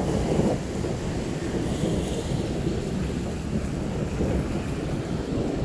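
Thunderstorm noise: wind buffeting the microphone over the hiss of rain, a steady low rumble with no single sharp thunderclap.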